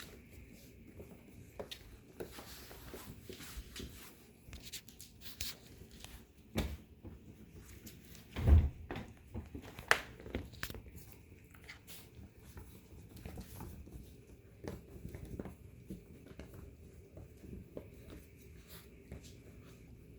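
Puppies moving about and playing on a hard floor: scattered light clicks, scrabbles and knocks, with one loud thump about eight and a half seconds in and a sharp knock about a second later.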